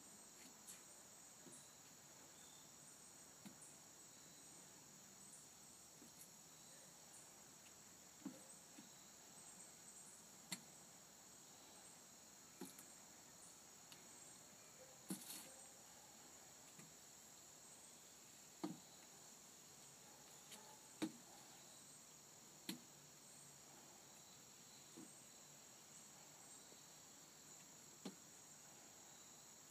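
Faint, steady chirring of crickets, with soft knocks every few seconds from a walking cane's tip and slow footsteps on wooden footbridge boards.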